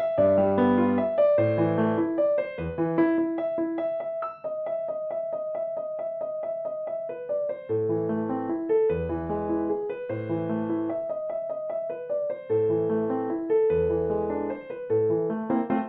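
Background piano music: a gentle melody over low bass notes, with a passage of quickly repeated notes in the middle.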